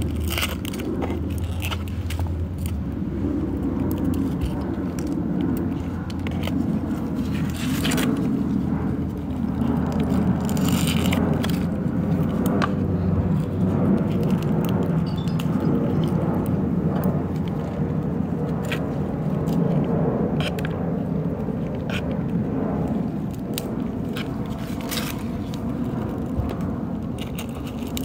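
Dry, dead succulent leaves being stripped off by hand close to the microphone: scattered crackles and small snaps over a steady low rumble.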